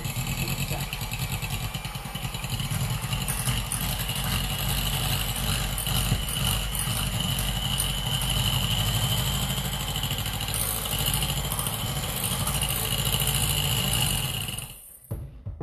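Electric hand mixer running steadily with a constant motor whine, its beaters whisking eggs and vanilla sugar in a glass bowl. It stops shortly before the end.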